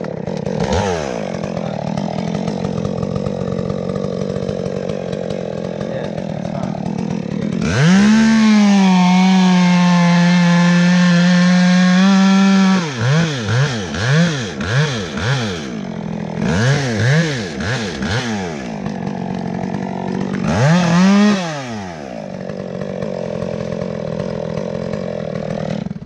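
Gas top-handle chainsaw cutting into a sweet gum limb. It idles, is held at full throttle for about four seconds, then revs in a string of quick bursts, revs once more near the end and drops back to idle.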